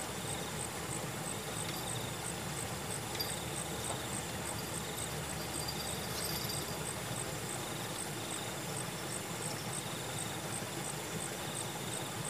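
Insects chirping in evenly spaced high-pitched pulses, about two a second, with a second, lower insect trilling in slower pulses, over a steady background hiss.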